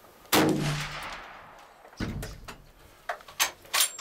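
A single hunting-rifle shot about a third of a second in, its echo rolling away over about a second. A dull thump follows about two seconds in, then several sharp clicks and knocks near the end.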